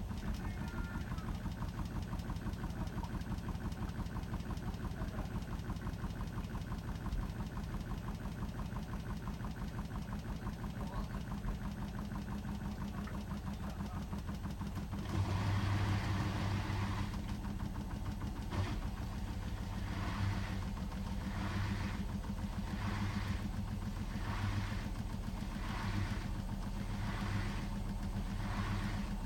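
Hotpoint WMFUG 942 washing machine running, with a steady low motor hum. About halfway through it grows louder and a swish repeats about once a second as the drum turns the load.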